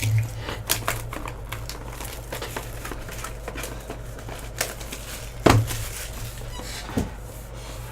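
Trading cards and their plastic sleeves being handled: rustling with scattered light clicks, and two sharper clicks, one about five and a half seconds in and one near seven seconds. A steady low hum runs underneath.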